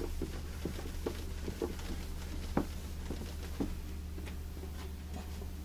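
Hands and a cloth working over a waxed wooden cabinet top: scattered light taps and rubbing, with two louder knocks about two and a half and three and a half seconds in as the wood is gripped and moved. A steady low hum runs underneath.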